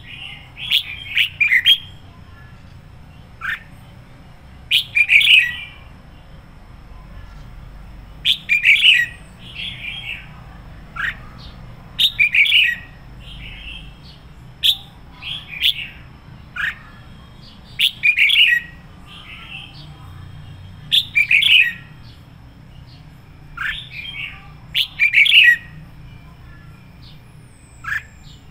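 Red-whiskered bulbul singing: about a dozen short, bright warbled phrases, one every second or two. Single sliding notes fall in between, as in the excited full song bird keepers call căng lửa.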